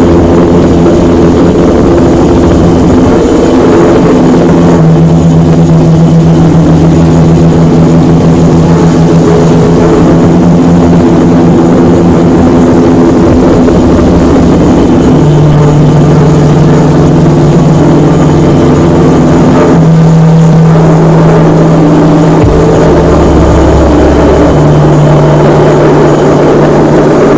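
Helicopter engine and rotor running steadily and loud, with held tones that shift in pitch a few times.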